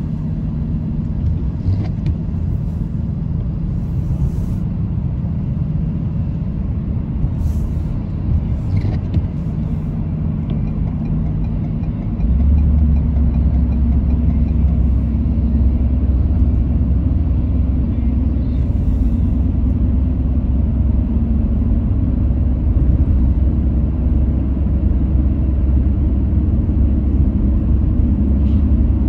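Car driving in city traffic: steady low road and engine rumble. About twelve seconds in, the rumble steps up and becomes louder and deeper, and stays that way.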